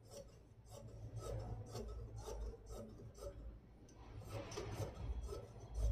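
Tailor's scissors cutting through fabric: a faint, steady run of short snips, about two or three a second.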